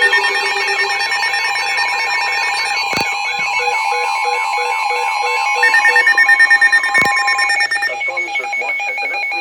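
Weather radio emergency alert tones for a tropical storm warning: several electronic alarms sounding over each other, steady tones mixed with fast beeping and a warbling pattern. One steady tone stops about seven and a half seconds in, and the beeping changes near the end.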